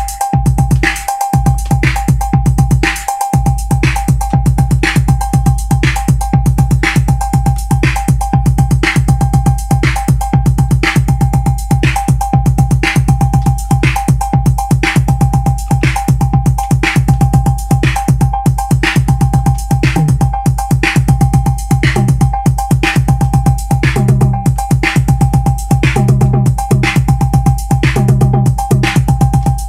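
Roland TR-8 drum machine playing a looping electronic beat at 120 BPM while its pattern is tweaked live. The beat has heavy bass, evenly repeating sharp hits and a steady ringing tone, and the bass drops out briefly a couple of times in the first few seconds.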